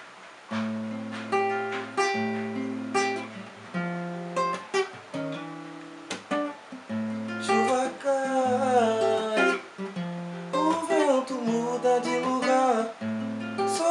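Acoustic guitar playing a song's introduction: chords plucked and strummed at a steady pace. About halfway in, a gliding melody line joins over the chords.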